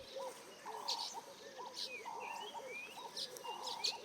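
Several birds calling over one another: a steady run of short, repeated calls with occasional higher chirps mixed in.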